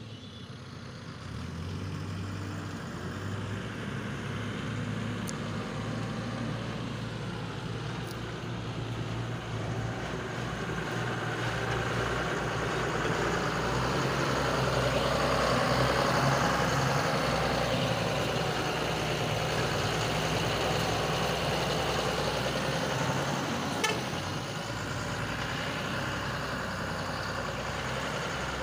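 Diesel engine of a soil-laden Eicher tipper truck running under way, getting louder toward the middle as the truck comes close. A single sharp click near the end.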